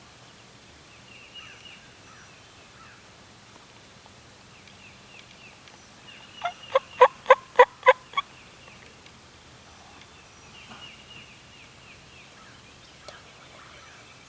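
A wild turkey gobbler gobbling once at close range: one rapid rattling series of about eight notes lasting around two seconds. Faint songbird chirps sound around it.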